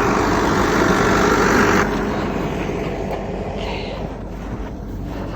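Tractor engine running steadily, loud for about two seconds, then dropping suddenly to a quieter rumble.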